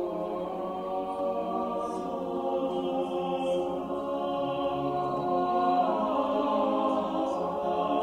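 Background music of slow, held choir-like chords that shift gradually.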